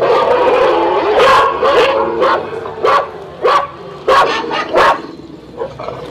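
Dog barking repeatedly: a quick run of yaps, then about seven sharp barks roughly half a second apart.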